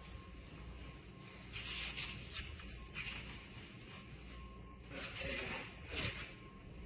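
Shaggy fur costume rustling and brushing against the microphone in several swishing bursts as it is handled.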